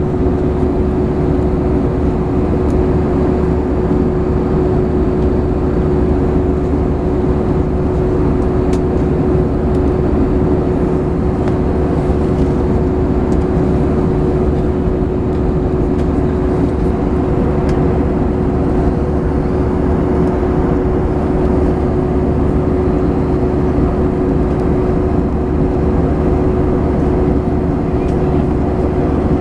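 Steady engine and airflow noise inside an airliner cabin at cruise, a loud, even rumble with one steady humming tone held throughout.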